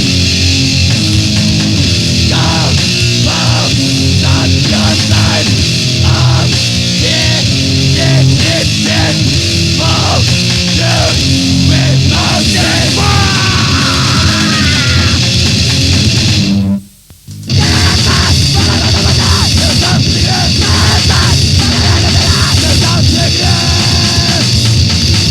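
Grindcore / power-violence band recording from a demo tape: fast, heavily distorted guitars and pounding drums played flat out. About two-thirds of the way in, the band stops dead for under a second, then crashes back in.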